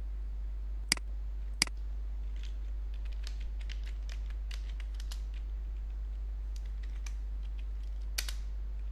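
Typing on a computer keyboard: a run of light, irregular key clicks, with two sharper, louder clicks about a second in. A steady low hum runs underneath.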